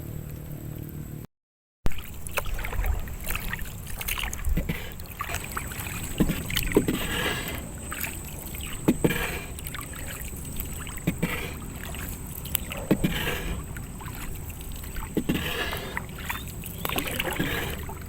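Small boat being paddled: a paddle dips and pulls through the water about every two seconds, each stroke a splash with a light knock, over steady water noise. The sound drops out briefly near the start.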